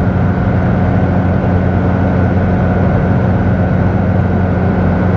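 Cabin drone of a big-turbo Mitsubishi Lancer Evolution X's turbocharged four-cylinder engine cruising at steady revs: a low bass hum, more engine than exhaust, because the exhaust runs through three mufflers and is quiet.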